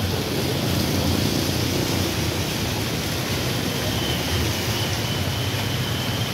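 Steady outdoor background noise: a low rumble under an even hiss, with a faint high thin tone from about four seconds in.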